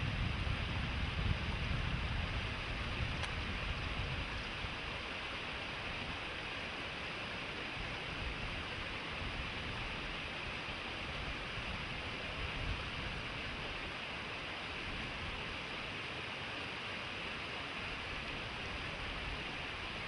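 Stream rushing over rock ledges and small rapids, a steady rush of water, with low wind rumble on the microphone for the first few seconds.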